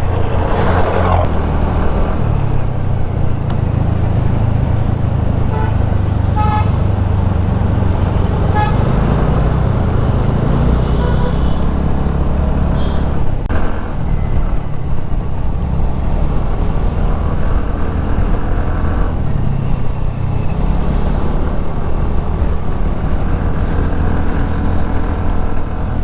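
Riding noise in road traffic: a steady low rumble of engine and wind on the moving camera, with short horn toots a few times, around a quarter and a third of the way in.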